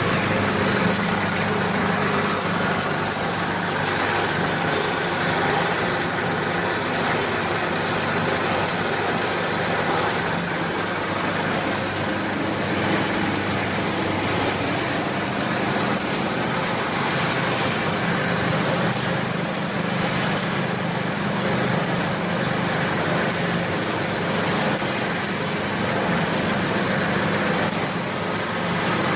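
Automatic alcohol pad packaging machine running steadily: a constant mechanical hum with sharp clicks repeating at an even pace, about one a second, as it cycles.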